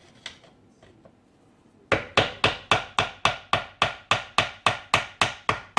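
Hand hammer blows on the metal of an NP208 transfer case, a fast, even run of sharp ringing strikes at about four a second that starts about two seconds in, after a few faint clicks. The hammering is knocking at the corroded aluminium extension housing to break it loose.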